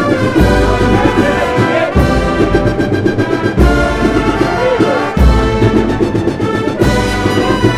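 Agrupación musical, a Spanish Holy Week band of cornets, trumpets, trombones and drums, playing a processional march, with heavy percussion strokes about every second and a half.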